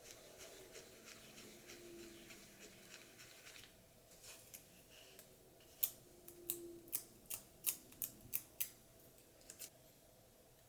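Small sharp clicks from handling an action camera and its tempered glass screen protector. A light run of fast faint ticks comes first, then, after about six seconds, about ten crisp clicks, roughly two or three a second.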